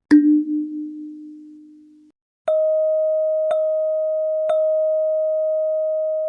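Two ding sound effects. First a single low ding with a wavering ring that cuts off after about two seconds. Then a higher, clear ding struck three times about a second apart, ringing on steadily after the last strike.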